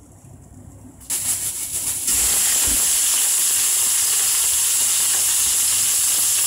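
Slices of raw pork sizzling in hot oil in a non-stick frying pan: a loud frying hiss that starts about a second in as the meat goes into the oil, then grows louder and holds steady.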